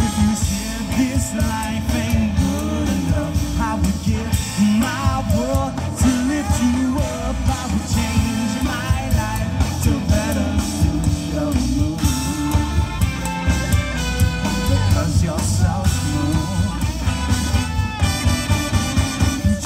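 Live band playing an upbeat rock-and-roll number: electric guitar, bass, drums and a horn section on a steady beat, with a lead voice singing over it.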